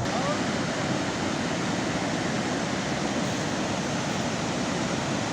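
Fast-flowing mountain river water rushing in a steady, even wash of noise.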